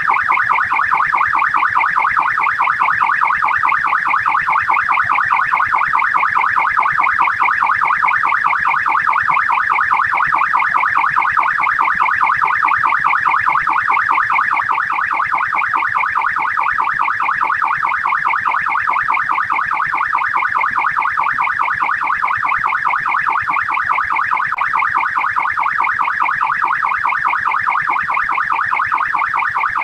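Australian police siren in fast yelp mode: a rapid, continuous up-and-down warble that repeats many times a second without a break.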